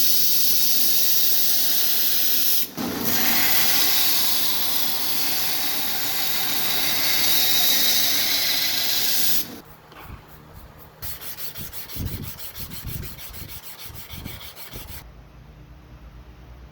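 Steel knife blade being ground against an abrasive, a steady loud grinding hiss with a brief break about three seconds in, stopping after about nine and a half seconds. Quieter, quick, even rubbing strokes follow near the end.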